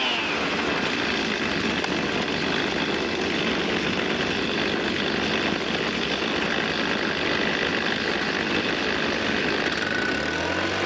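Several small two-stroke engines (chainsaws, string trimmers and a backpack blower) running at once, a dense, steady drone. Near the end one engine is revved up, its pitch rising.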